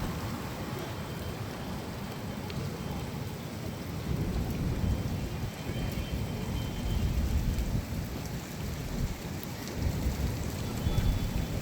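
Heavy rain falling steadily, with low rolling thunder that swells up several times.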